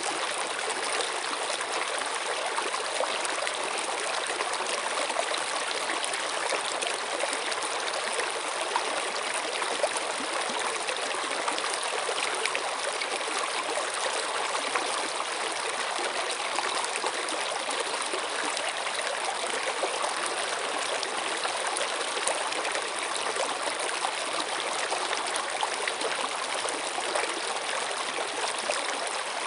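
Flowing stream water, a steady rush with fine trickling and splashing detail.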